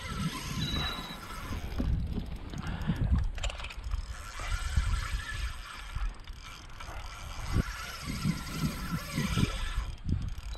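Spinning reel being worked while a hooked redfish is fought on a bent rod, its gear and drag mechanism clicking, with wind rumbling on the microphone.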